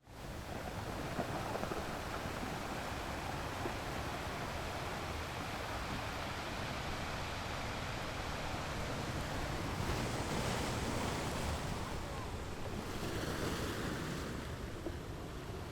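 Ocean surf breaking against rocks: a continuous rushing wash of water that swells louder about ten seconds in and again near the end. It fades in from silence at the very start.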